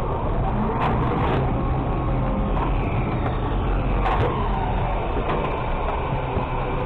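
Mack LR600 garbage truck with a Labrie automated side-loader body running steadily: a low engine and hydraulic rumble heard from the hopper. A few sharp knocks and rattles come about a second in and again around four seconds.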